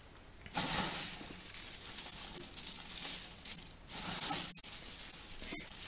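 Dry, fermented fireweed (ivan-chai) leaves rustling and crackling as fingers stir through them, crisp because the tea is fully dried. It comes in two long spells with a short break about two-thirds of the way through.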